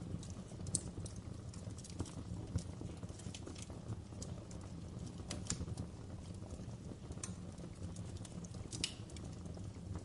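Fire crackling in a fireplace: scattered sharp pops and snaps over a low, steady rumble of flames.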